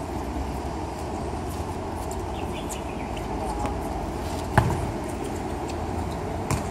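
A futsal ball kicked once, a sharp thud about four and a half seconds in, with a softer knock near the end, over steady background noise.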